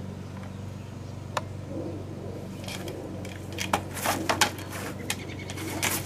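Hard plastic washing-machine ring clicking and clattering as a small dog chews and handles it: one sharp click early, a quick run of clicks a little past halfway, and a couple more near the end, over a steady low hum.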